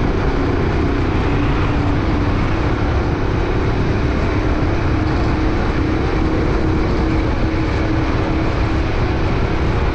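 Steady running noise of a moving road vehicle: a heavy, fluttering low rumble, typical of wind buffeting the microphone, over an unbroken engine hum.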